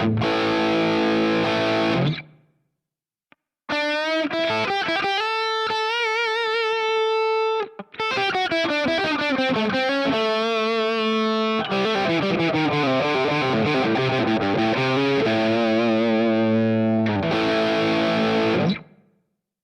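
Distorted electric guitar played through a Marshall JCM800-type amp simulation with a 1960-type 4x12 cabinet on a digital amp modeler. A chord rings and is cut off about two seconds in; after a short pause a lead phrase starts, with held notes that waver in pitch, and it stops shortly before the end.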